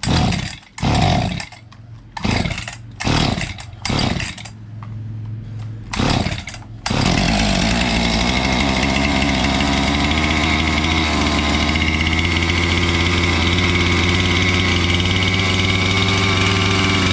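Husqvarna 257 two-stroke chainsaw being pull-started: several quick yanks of the recoil starter cord, a brief sputter of firing, then about seven seconds in it catches and runs steadily at a fast idle.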